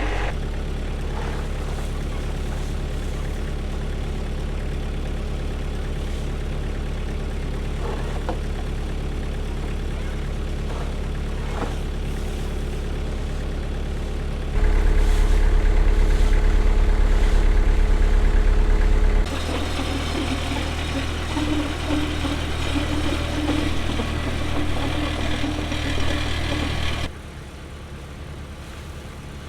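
Diesel engine running steadily, its level and tone jumping abruptly a few times: louder about halfway through, then changing again, and dropping quieter near the end.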